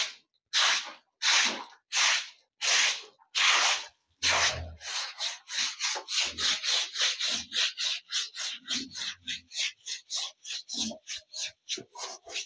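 Stiff broom scrubbing and pushing water across a wet concrete floor. About six slow, long strokes come first, then quicker, shorter strokes about four a second.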